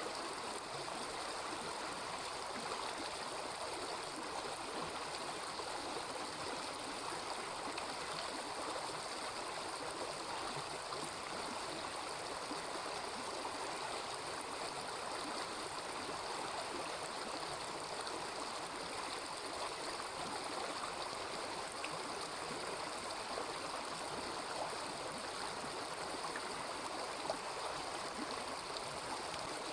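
Small river babbling over stones: a steady, even rush of running water, with one brief click near the end.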